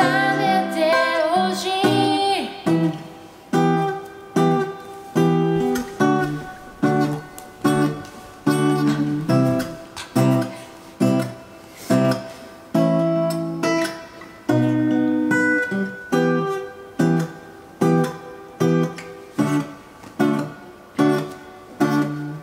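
Acoustic guitar strumming chords in a steady rhythm, each stroke sharp and quickly dying away. A sung line trails off in the first two seconds.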